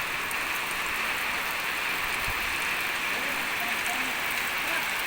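Heavy rain falling steadily, an even hiss of a downpour.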